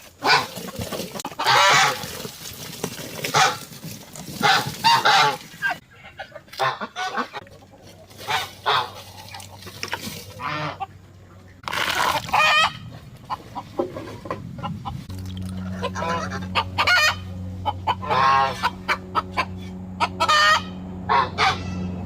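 Farm poultry calling over and over, loud goose-like honks among chicken clucks. About two-thirds of the way in, a steady low hum starts under the calls.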